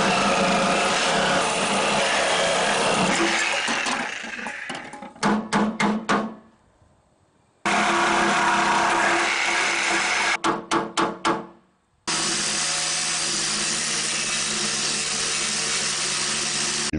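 Reciprocating saw cutting sheet metal around a tractor headlight mount, running steadily in three stretches. After the first and second stretches comes a quick run of about five or six hammer blows on metal.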